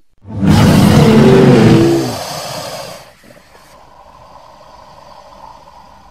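An edited creature roar sound effect voicing a Liopleurodon: a loud roar of about two seconds that falls in pitch, then trails off into a quieter tail.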